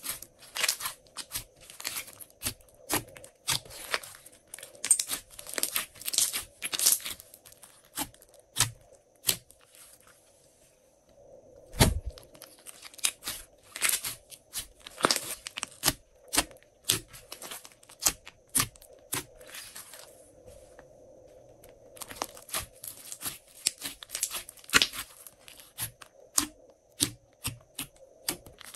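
Hands pressing, poking and stretching glossy slime, squeezing out trapped air in an irregular run of sharp wet clicks, pops and short crackles, coming in bunches with quieter gaps.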